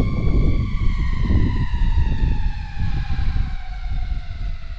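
A siren holds a steady pitch for about a second, then slides slowly and evenly down for the rest of the time, over the rumble of wind buffeting the microphone.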